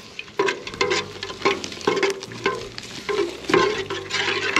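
Plastic spatula stirring and scraping around a metal pot, about two strokes a second with a short squeaky scrape on each, over a steady hiss, as pinole is poured in from a bag to make batarete.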